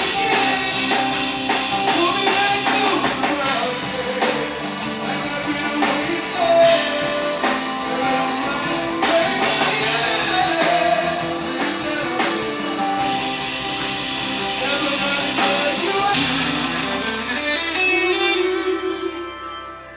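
Live band music with singing. The full band sound thins out about 16 seconds in, leaving sparser held notes that drop away near the end.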